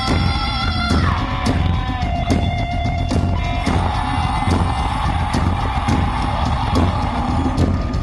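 Live rock band playing through a stage PA: electric guitar and bass over a steady drumbeat, with a long held note that drops in pitch about a second in.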